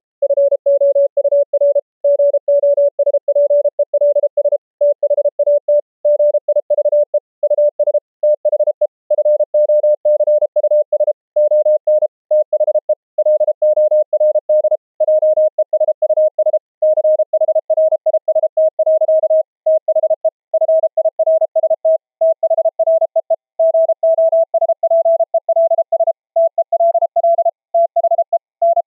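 Morse code tone keyed in dits and dahs: a pure sine-wave CW note with soft raised-cosine edges coming out of an SDR bandpass filter. Its pitch rises slowly from about 565 Hz to about 680 Hz as the LO mixer is tuned up, while the keying rhythm stays the same.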